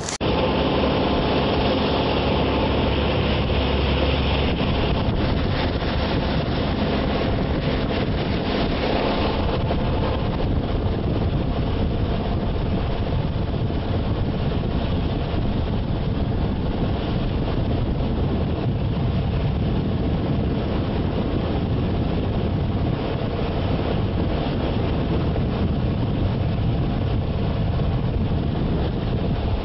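Yamaha 115 outboard motor running at speed, a steady engine drone under heavy wind on the microphone and rushing water from the wake. The engine tone is clearest in the first nine seconds or so, after which wind and water noise dominate.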